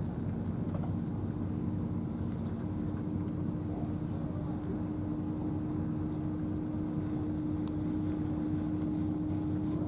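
An engine running steadily, a low drone with a constant hum that neither rises nor falls.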